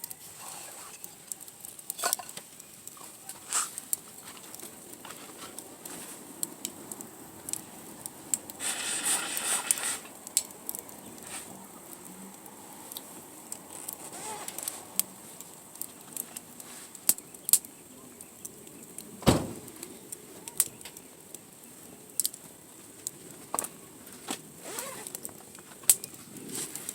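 Wood campfire crackling with scattered sharp pops, a brief rush of noise about nine seconds in, and a single thump a little past the middle.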